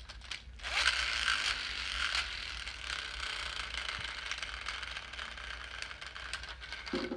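LEGO Ninjago spinner toy set spinning in its hand launcher, with a mechanical gear whir that starts about a second in and slowly dies away.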